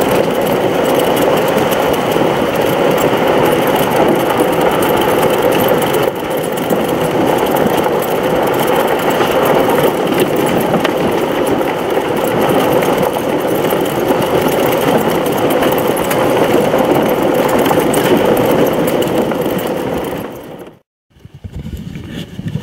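Electric off-road golf cart driving along a dirt trail: a steady motor and drivetrain hum with tyre noise. About twenty seconds in the sound fades into a moment of silence, then comes back quieter.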